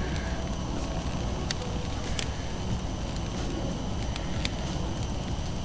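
Redfish fillets sizzling on a charcoal kettle grill over hot coals, a steady hiss with a few sharp pops and crackles from the fire.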